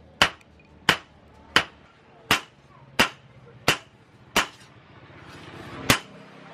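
Hand hammer striking chainsaw-bar steel on a post anvil: sharp metal-on-metal blows at an even pace of about one every 0.7 seconds, pausing briefly while a rising hiss builds before two more blows near the end.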